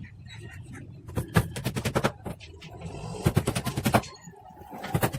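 Three bursts of quick, sharp strikes on wood, several a second, from carpentry work on a wooden cupboard.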